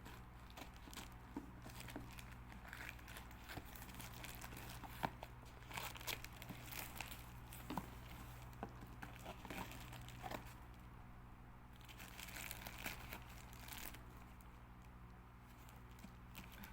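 Parcel wrapping being crinkled and torn open by hand, in irregular rustles and small snaps, over a steady low hum.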